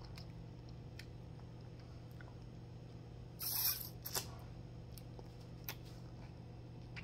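A knife scraping frosting against the rim of a plastic frosting tub: one short scrape about halfway through, followed by a few light clicks and taps. A steady low hum sits underneath.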